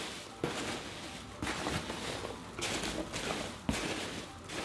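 Hands rummaging inside a cardboard shipping box, rustling the cardboard and the packing. The rustle comes in several sudden bursts about a second apart.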